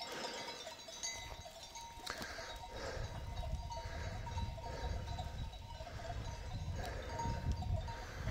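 Neck bells on a grazing flock of sheep ringing steadily. A low rumble joins about three seconds in.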